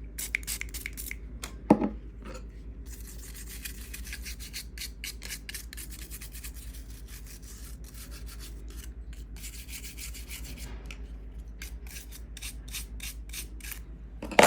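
Rapid scrubbing strokes on a GoPro 10's frame, cleaning off old screen adhesive, with a sharp click about two seconds in.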